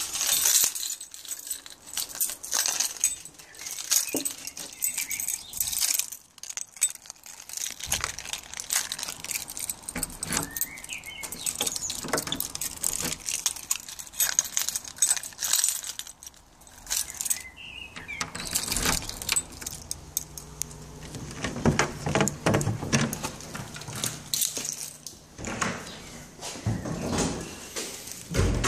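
Small metal pieces jingling and clicking irregularly, on and off, with low thumps of footsteps toward the end.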